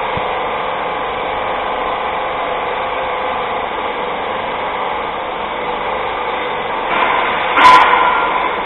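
CH844 airless diaphragm-pump paint sprayer running while its pole-mounted gun sprays stain: a steady rushing noise that swells louder about seven seconds in.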